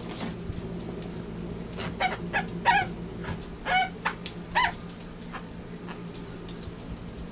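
Dog's squeaky plush toy squeaking about five times in quick short squawks in the middle stretch, as a small dog mouths it.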